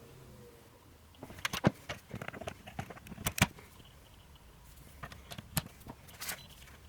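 Scattered clicks and knocks of plastic plugs and a plug-in watt meter being handled and pushed into a socket, the loudest about a second and a half in and again about three and a half seconds in.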